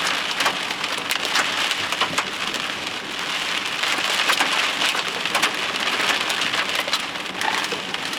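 Heavy rain pelting a vehicle's roof and windshield, heard from inside the cabin: a dense, steady patter with many sharp separate hits.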